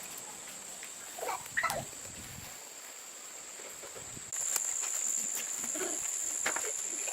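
Farmyard ambience: a steady high-pitched insect drone, jumping louder about four seconds in, with a few short farm-animal calls about a second in.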